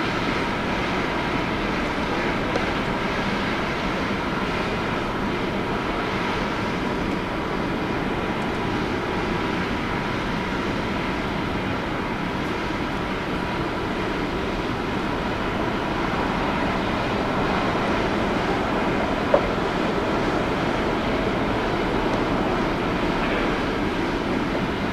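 Steady noise of airliner jet engines running at low power, with a faint steady whine, and a single short click about three quarters of the way through.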